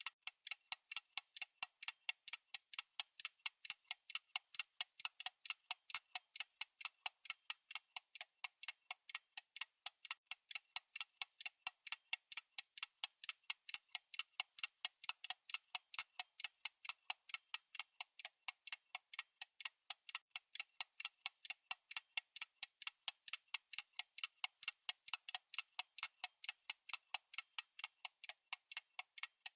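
Steady clock-style ticking of a countdown timer: light, crisp ticks, evenly spaced, a few each second.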